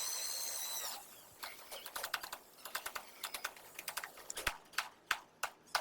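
Faint high-pitched whine for about a second, then light irregular clicks and taps, several a second.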